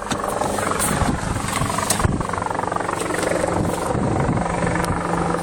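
A steady engine drone under a noisy rush, with a low steady hum settling in about halfway through.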